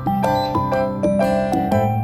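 Instrumental background music: a melody of short struck notes, about four a second, over low sustained bass notes.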